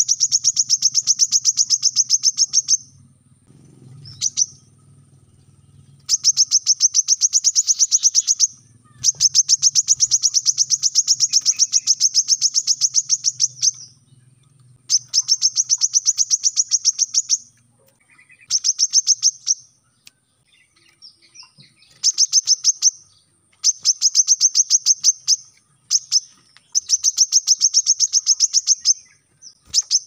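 Male brown-throated sunbird (kolibri kelapa) singing in long runs of rapid, evenly repeated high notes, the close-fired 'tembakan rapat' song, each run lasting two to five seconds with short pauses between.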